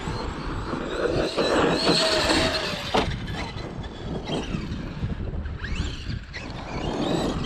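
Stock brushless electric motor of a Traxxas X-Maxx 8S RC monster truck whining as it is throttled up and down, over a steady low rumble. A sharp knock about three seconds in.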